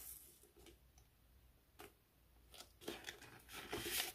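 Paper banknotes rustling and crinkling as they are handled and pulled from a plastic binder pouch. A few light rustles come first, then a busier, louder stretch of rustling in the last second and a half.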